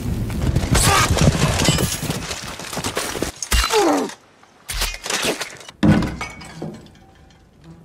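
Film sound effects from rapidly cut violent scenes: a burst of crashing and breaking, then a short sound gliding down in pitch and a few sharp hits, growing quieter near the end.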